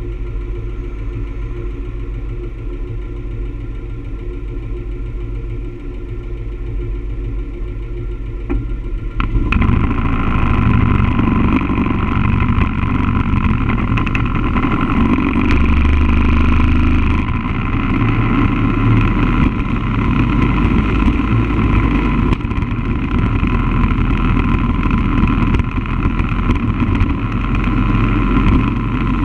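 A road vehicle's engine idling steadily while stopped, then about nine seconds in it pulls away and the sound gets louder, with engine noise joined by the rush of wind and road noise while under way.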